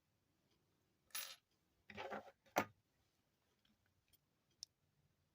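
A few light handling noises of crafting tools: a short rustle with a faint high metallic ring about a second in, another brief rustle, then a sharp click, the loudest, about two and a half seconds in, and a couple of tiny ticks near the end.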